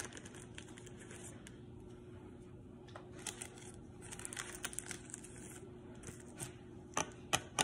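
Faint rustling and light clicks of a trading card in a clear plastic case being handled, with a few sharper clicks near the end.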